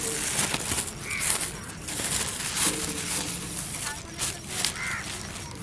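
Thin plastic bag crinkling and rustling as powdered bait is shaken out of it into a steel bowl.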